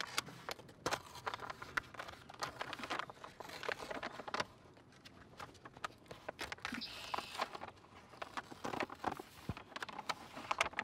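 Release paper being peeled off Vycor Pro self-adhered flashing tape and the tape pressed down by hand, with irregular crackling and crinkling of the paper and rustling of the house wrap.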